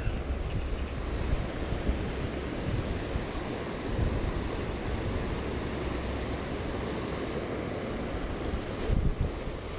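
Ocean surf washing over shoreline rocks, a steady rush of breaking water, with wind buffeting the microphone in gusts about four seconds in and near the end.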